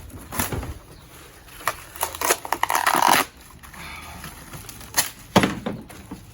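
Cardboard box and packing scraped, rustled and knocked as a tower fan jammed tight in its box is pulled and worked out by hand: irregular scrapes and knocks, with a longer scraping rub about halfway through.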